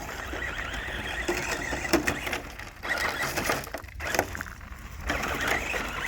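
A 1/10-scale RC rally car driving: a steady rushing noise from tyres and drivetrain on loose ground, broken by a few sharp knocks and clicks.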